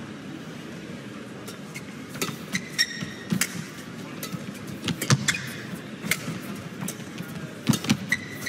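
A badminton rally: sharp racket-on-shuttlecock hits starting about two seconds in and coming roughly every half second to a second, with a couple of short high shoe squeaks on the court floor, over the steady hum of an indoor arena.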